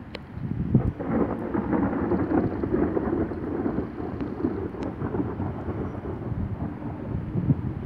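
Thunder rolling: a long, low rumble that swells about a second in, stays strong for a few seconds and then slowly eases off.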